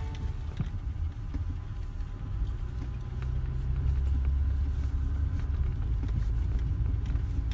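Low rumble of a vehicle driving slowly on an unpaved dirt road, heard from inside the cabin: engine and tyres on the rough surface, with a few faint ticks.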